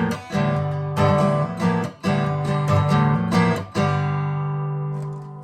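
Acoustic guitar strummed in a rhythmic pattern, ending on a final chord that is left to ring and fade out about four seconds in.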